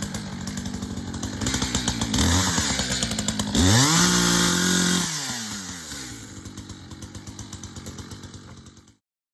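Two-stroke chainsaw idling with a rapid putter. About three and a half seconds in it is revved sharply to full throttle for about a second, then drops back to idle. The sound cuts off abruptly near the end.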